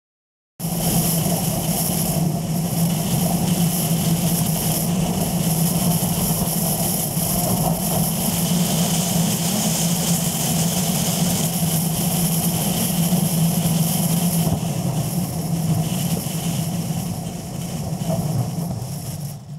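Car driving along a gravel road at speed: steady engine and road noise that cuts in abruptly about half a second in and eases off near the end.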